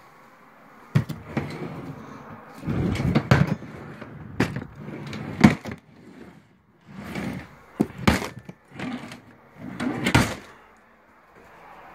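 A drawer full of Lego being pulled open and pushed shut: a string of knocks and short sliding, rattling scrapes, the last about ten seconds in.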